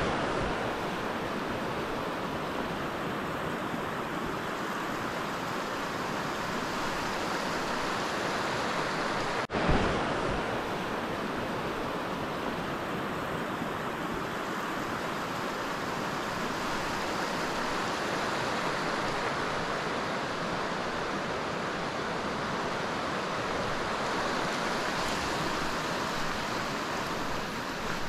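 Steady rush of the glacier-fed meltwater river running over its braided gravel bed, broken by a short dropout and bump about ten seconds in.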